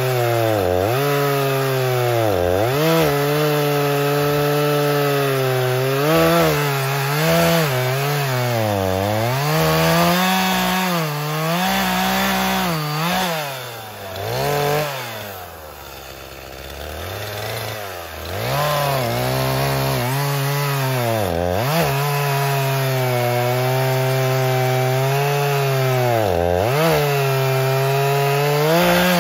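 Echo two-stroke chainsaw cutting through a log at high revs, its pitch sagging each time the chain bites under load and climbing again as it frees. About halfway through the saw eases off and runs quieter and lower for a few seconds, then revs back up and keeps cutting.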